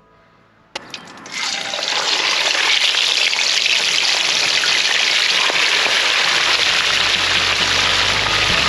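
Whole tullibee deep-frying in a wok of hot oil: a loud, steady sizzling that starts about a second in and builds over the next second. A low rumble joins about six seconds in.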